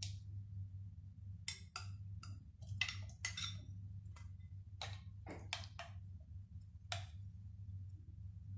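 A metal spoon clinking and tapping against glass bowls in about a dozen light, irregular ticks as chopped banana is scraped into custard and stirred, over a faint steady low hum.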